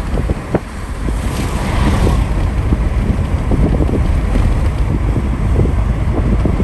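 Wind buffeting the microphone, with road rumble and knocks from a car driving on a rough road.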